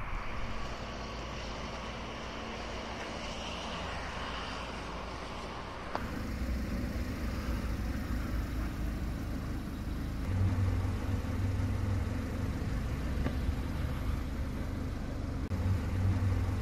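Road traffic noise in a field recording. About six seconds in it cuts to a lower, steadier hum, with a low rumble swelling up twice.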